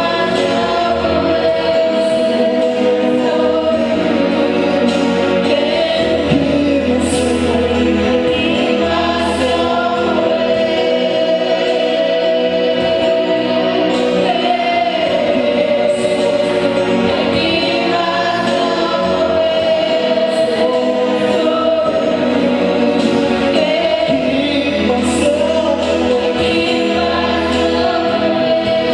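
Gospel choir singing a worship song over instrumental accompaniment with a bass line that changes note every few seconds.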